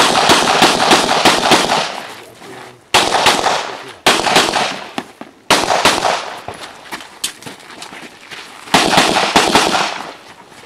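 A semi-automatic handgun is fired in quick strings of sharp shots, several a second. Short pauses fall between the strings as the shooter moves through an IPSC practical shooting stage.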